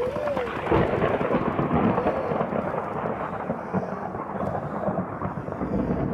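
Thunderstorm sound effect: continuous rolling thunder with a rain-like hiss.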